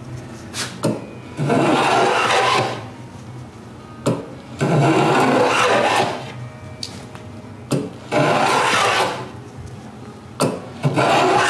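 A hand tool rasping along the edge of a wooden cabinet face frame, breaking the edge to a small chamfer. It goes in long strokes of a second or so, about one every three seconds, with light knocks between them as the tool is set back on the wood.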